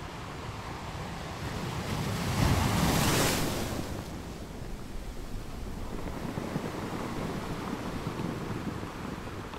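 Sea surf on a sandy beach: one wave builds, breaks loudest about three seconds in and fades to a steady wash of water, with wind buffeting the microphone.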